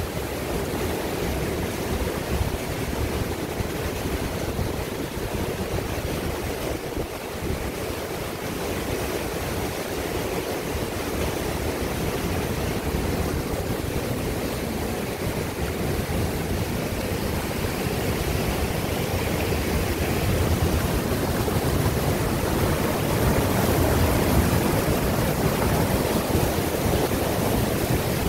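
Small mountain-stream waterfall pouring white water over rock ledges into a pool: a steady rushing of water that grows louder in the second half.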